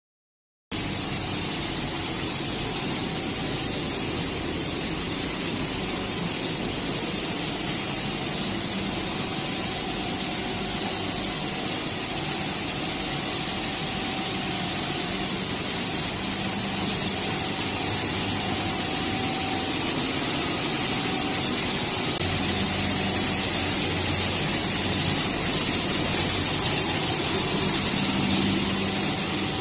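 Fortified-rice-kernel plant machinery, driven by electric motors, running steadily: a continuous mechanical drone with a strong high hiss, starting suddenly about a second in.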